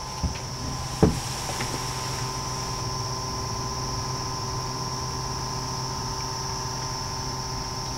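Steady background hum with a thin, high-pitched whine above it, and a single knock about a second in.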